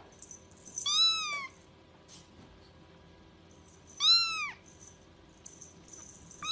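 A kitten meowing twice, about three seconds apart: short, high-pitched calls that rise and then fall in pitch, with a third meow starting at the very end.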